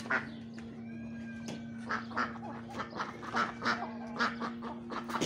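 Domestic ducks quacking in a quick run of short calls, busiest in the second half, over a steady low hum.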